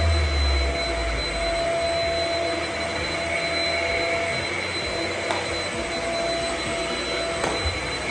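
Shark Rocket corded stick vacuum running steadily: the rush of suction with a high, steady motor whine on top. A few low thumps sound in the first second or so.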